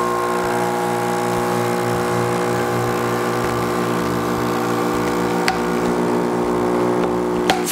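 Two Lagenda electric balloon inflators (B221 and B231) running together as they inflate long 350-size twisting balloons: a steady motor hum with a clear pitch. It stops abruptly near the end.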